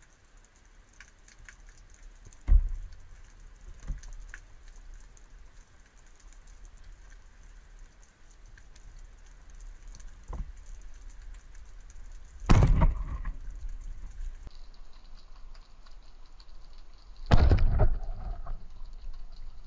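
Underwater ambience: a steady fine crackle of many small clicks. A sharp knock comes about 2.5 s in, a smaller one near 4 s, and two louder rushing thumps near 12.5 s and 17 s, the last with a burst of bubbles.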